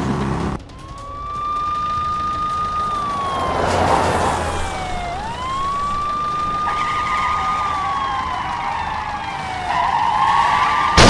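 Police siren wailing in slow rises and falls, about two and a half cycles, starting about half a second in. A rushing noise swells under it about four seconds in and again near the end.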